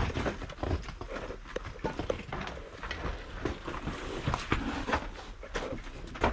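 Footsteps of a person walking, an irregular run of knocks, crunches and scuffs.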